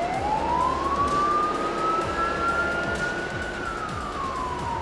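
Emergency vehicle siren wailing through one slow cycle: the pitch rises for about three seconds, then falls again. Under it runs the low rumble of a vehicle engine.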